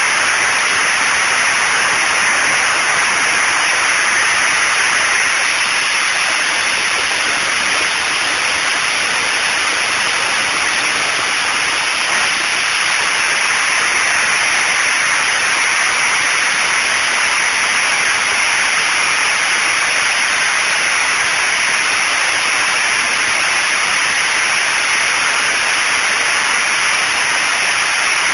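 ED-200 diesel generator's tank-derived diesel engine running steadily, heard from inside its enclosure as a very loud, even noise that the phone microphone turns into a harsh hiss.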